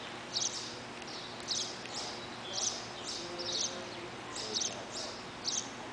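A small bird chirping repeatedly, a short high chirp about once a second, sometimes two close together.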